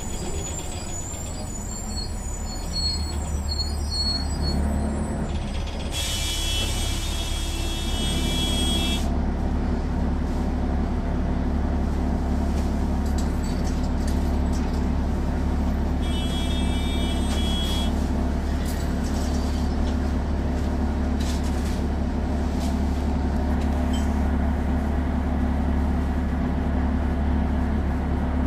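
Cummins C8.3 diesel engine of a 1995 Nova Bus RTS running, heard from the rear of the bus while under way. It gets louder over the first several seconds, then holds steady. Two brief hissing sounds with a high ringing note come about six and sixteen seconds in.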